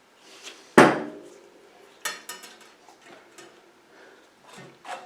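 A sharp metallic knock about a second in that rings briefly, followed by a few lighter clinks: a loose steel bicycle spoke tapping against the wheel's other spokes and hub as it is threaded through.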